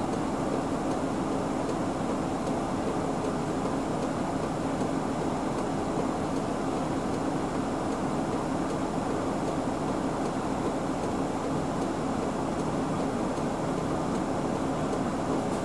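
City bus engine idling while the bus stands still: a steady, even hum heard inside the cabin.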